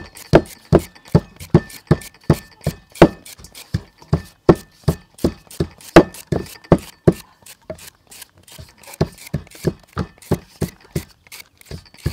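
Crinkle-cut hand slicer cutting crisp slices off a raw white root vegetable: a sharp crunch with each stroke, about two to three strokes a second, with a brief pause about two-thirds of the way through.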